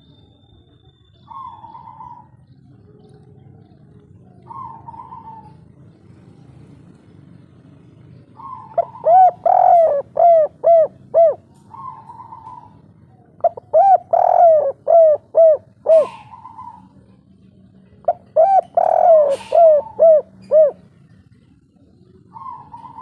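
Spotted dove cooing in the 'kuk 3' song style: three loud bouts of several quick down-sliding coo notes, each bout lasting about two seconds, with softer single coos in the gaps between them.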